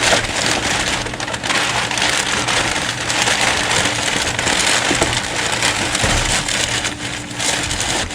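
Kraft paper being crumpled and stuffed into a cardboard shipping box as loose void fill: a continuous papery rustle that swells and eases.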